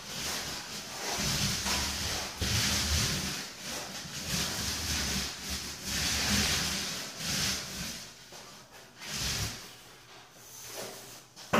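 Paintbrush swishing against a wall in repeated strokes, roughly one a second, while cutting in paint along the edges. The strokes stop about eight seconds in, leaving a quieter stretch.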